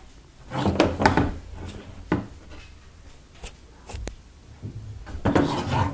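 Close-up handling noise from fingers twisting thin stripped wires and moving a PVC pipe assembly on a bench: irregular rubbing and rustling, with several soft knocks and sharp clicks.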